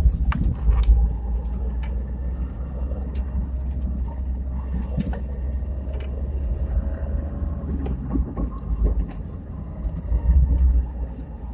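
Inside a 2017 Chevrolet Niva on the move, heard through a phone: a steady low road and drivetrain rumble with the engine running underneath and slowly changing pitch. Scattered dull knocks and clicks come from the drivetrain, the kind of transmission knocks that remain after the intermediate shaft and left front driveshaft were replaced.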